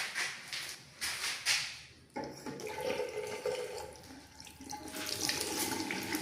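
Water from a newly plumbed tap, turned on suddenly about two seconds in and then running steadily, after a few brief knocks.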